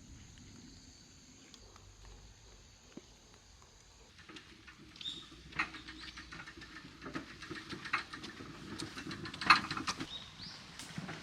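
Outdoor woodland sound: a steady thin high tone for the first few seconds, then many scattered small clicks and taps from about four seconds in, with a few short bird chirps.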